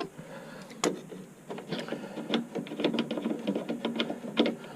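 A hand tool clicking as it works the bolt and machine screws that hold a pinball machine's head to the cabinet: one sharp click a little under a second in, then a quick run of light, rapid clicks.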